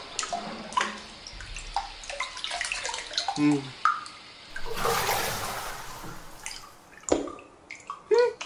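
Bathwater dripping and lapping, then a longer splash of water about four and a half seconds in as the bather climbs out of the tub, and a single thump near seven seconds.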